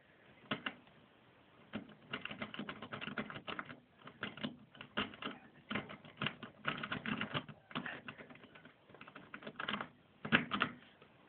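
Lock pick working inside an old Ford Granada's ignition barrel under tension: a long irregular run of small metallic clicks and scrapes as the pins are set, with a louder click about ten seconds in.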